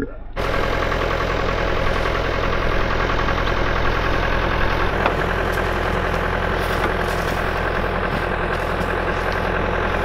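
A vehicle engine idling steadily, with an even low hum that holds throughout.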